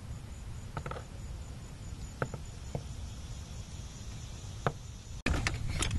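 Low background rumble with a faint steady high-pitched tone, and a few light clicks from handling the removed brake master cylinder. Near the end the sound drops out for an instant and comes back louder, with a quick run of clicks and rattles.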